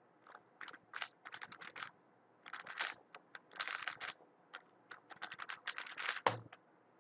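Weilong WRM 2019 magnetic speed cube being turned rapidly during a speedsolve: quick runs of plastic clicking and clacking with brief pauses, ending in a single sharp thump about six seconds in.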